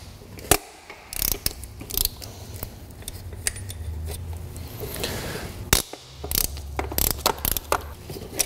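Hand ratchet clicking in short irregular runs, with metal clinks of the socket and bolts, as E10 E-Torx bolts holding the starter motor are undone.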